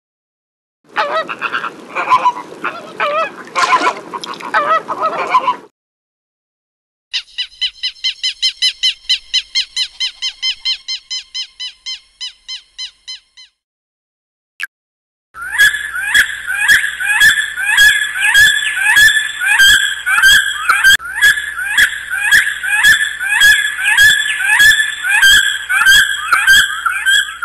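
Recorded bird calls, one species after another: flamingos honking for about five seconds, then a jacana's fast run of piping calls, fading out. After a short pause comes a long series of rapid, high, repeated calls, which is a bald eagle's.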